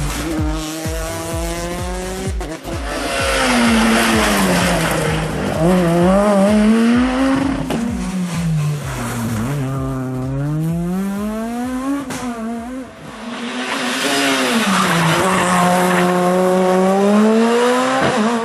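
Rally car engine driven hard, its pitch climbing and dropping again and again through gear changes and lifts for corners, with two brief dips in loudness.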